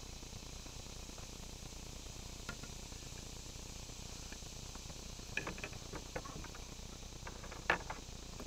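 Steady low hiss with a few scattered small clicks and taps: one alone, then a quick cluster, and the sharpest one near the end.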